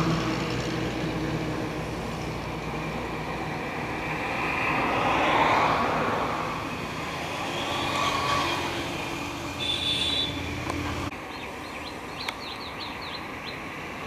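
Road traffic: vehicle engines droning and passing, swelling and fading, with a brief high tone about ten seconds in. The engine drone drops away sharply near eleven seconds, leaving a quieter background with a quick run of high chirps.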